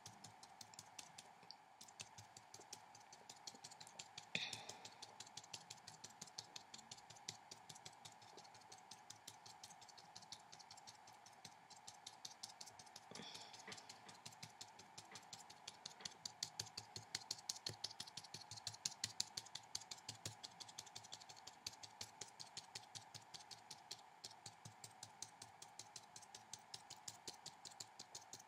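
Faint, rapid tapping of a paintbrush tip dabbing dots of paint onto paper, about four taps a second, over a low steady hum.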